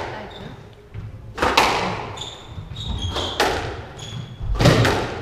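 Squash rally: sharp cracks of the racket hitting the ball and the ball hitting the walls, roughly one a second and ringing in the court, with short high shoe squeaks on the wooden floor between shots.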